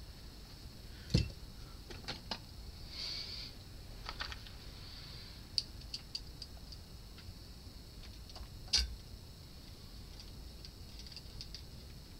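Scattered small metallic clicks and taps from fingers and a small tool handling the screws and metal-can output transistors on an amplifier's heatsinks, with two sharper knocks, about a second in and again near nine seconds.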